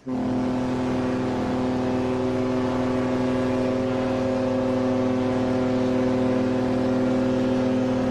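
A ship's engine drones steadily, with a constant low hum over a rushing noise. It starts abruptly and does not change.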